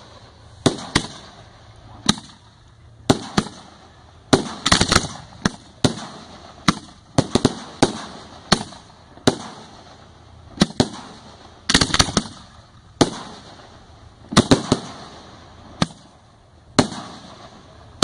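Aerial display fireworks going off: a run of sharp bangs of shells bursting, roughly one or two a second, some coming in quick clusters of several, each fading off with a brief echo.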